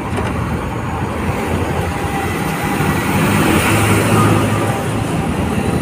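Highway traffic driving past: a steady rumble of cars, trucks and motorcycles, swelling louder about three to four seconds in as a heavier vehicle goes by.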